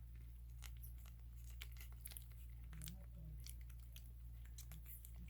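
Newborn puppies suckling at their mother: faint, irregular wet clicks and smacks.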